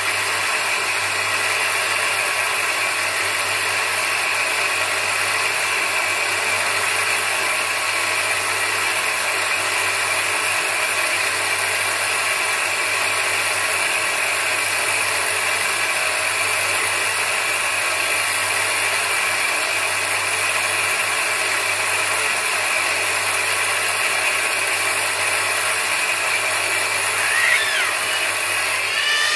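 Electric bench grinder running steadily with a low hum, its water-fed abrasive wheel sanding a bacan gemstone cabochon that is held against it. Near the end the pitch briefly slides up and down.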